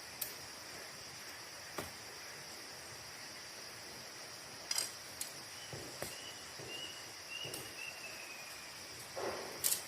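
Night insects, likely crickets, trilling steadily in a high, even chorus, with scattered sharp clicks and taps, a faint drawn-out whistle in the middle and a louder rustle near the end.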